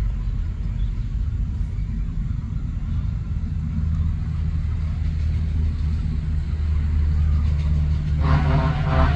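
Steady low rumble of an engine running nearby, with a held low hum. About eight seconds in, a voice starts over it.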